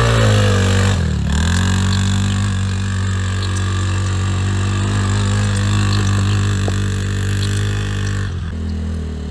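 Youth quad bike's engine running. Its pitch dips and climbs back in the first second or so, then holds steady revs, and the sound changes abruptly near the end.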